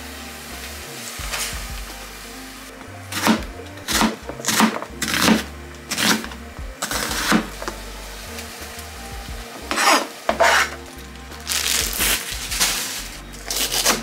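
Home cooking of sukiyaki: a run of short sizzles and clatters as ingredients go into the hot pot on a gas stove. Near the end comes a kitchen knife cutting mizuna on a cutting board.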